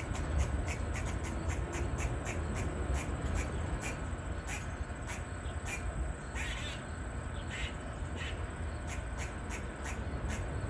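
Eastern grey squirrel barking: short, sharp calls repeated about three times a second, with a longer, noisier call about six seconds in. This is the grey squirrel's distress call, given when a predator is near.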